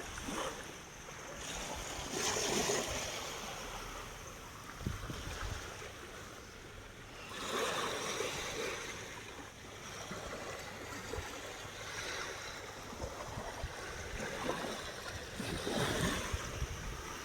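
Ocean surf: waves washing in as a steady hiss of water, swelling and easing every several seconds.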